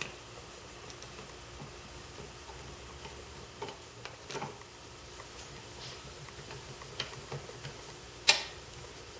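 Scattered light clicks and taps of a hand screwdriver and small screws on the metal diaphragm cover plate of a T-80 diving compressor head as the screws are started by hand, with a sharper click near the end.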